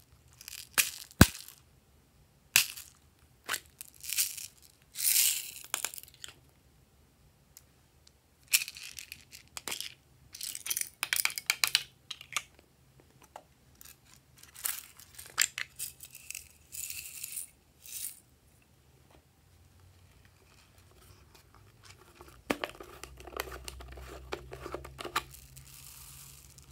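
Glossy slime being stretched, folded and pressed by hand, giving irregular bursts of sharp crackling and popping clicks. Near the end it turns to a softer, duller squishing for a few seconds.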